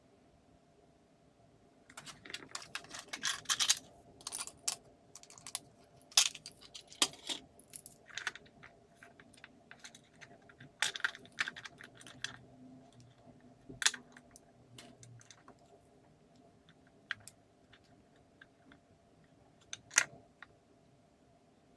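Irregular clicks and short clattering rattles of small hard parts and tools being handled and set down, starting about two seconds in, with a faint steady hum underneath.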